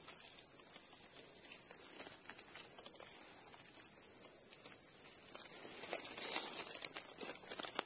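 Steady, high-pitched drone of forest insects, one even shrill tone, with a few faint clicks and rustles near the end.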